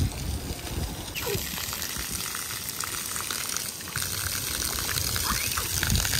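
Splash-pad water jets spraying and splattering onto wet concrete, a steady hiss that grows louder about a second in.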